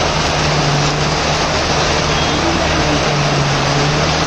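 Heavy rain falling with a steady, even hiss, over the low, steady hum of traffic engines running through a flooded street.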